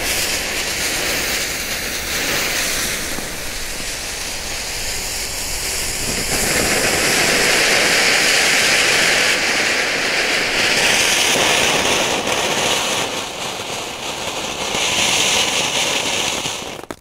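Three Cyber Crackling cone fountains burning together, spraying sparks with a steady hiss and dense crackle. The sound grows louder about six seconds in.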